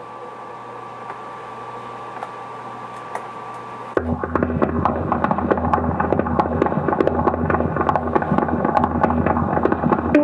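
Experimental sound-art noise: a low steady hum with a faint high tone, then about four seconds in a louder, dense crackle of rapid clicks over a deep hum breaks in abruptly and keeps going.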